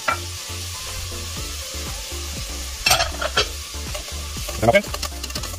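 Diced ham and butter sizzling steadily in hot olive oil in a stainless steel pot, with a few short clicks and scrapes of metal tongs stirring against the pot about three seconds in and again near the end.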